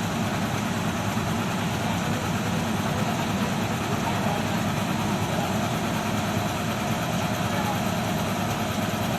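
Heavy diesel engine idling steadily, the even low rumble of an excavator or its transport truck running at rest.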